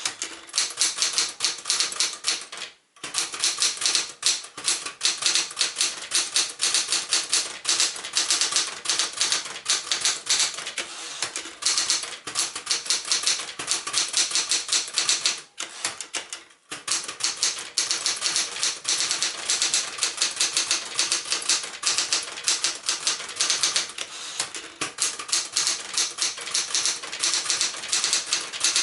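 1966 Smith-Corona Super Sterling manual portable typewriter being typed on steadily: a fast, continuous clatter of typebars striking the platen, with two brief pauses, about three seconds in and about halfway through.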